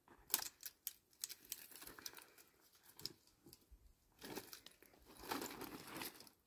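Rustling and crinkling with a string of sharp snaps and crackles, loudest in two longer bursts past the middle and near the end.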